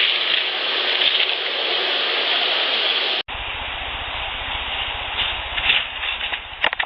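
Close-up handling noise of a field audio recorder: rubbing and scraping on the microphone with scattered clicks, which the uploader attributes to a Sasquatch picking the recorder up. About three seconds in it cuts abruptly to a second recording with a low steady hum underneath and a few sharp clicks.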